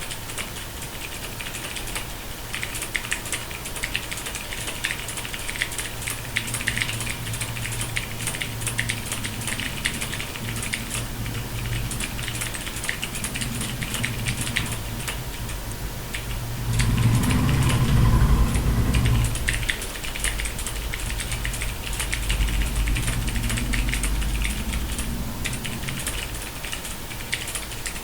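Mechanical keyboard with Cherry MX Silver Speed linear switches being typed on fast, a dense continuous patter of keystrokes. A low rumble swells underneath for about two seconds a little past halfway.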